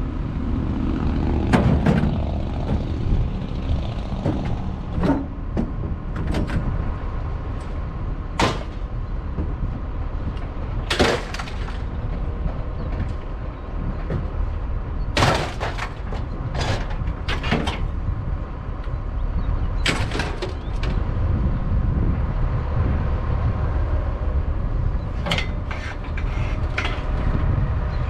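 Truck driving: a steady low engine and road rumble, with frequent sharp clanks and knocks scattered throughout.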